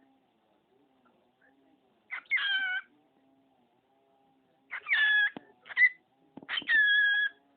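Cockatiel calling in high-pitched calls: one a couple of seconds in, then a quicker run of three in the last three seconds, the last held steady for most of a second.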